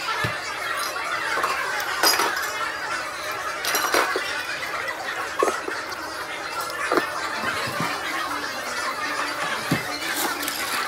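Bar background din with scattered sharp knocks and clinks of glasses and bottles being handled as a drink is mixed in a pint glass.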